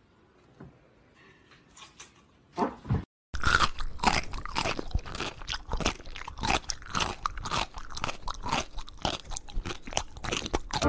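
Cat chewing and biting on a white sneaker: a fast run of crunching bites, several a second, beginning about three seconds in.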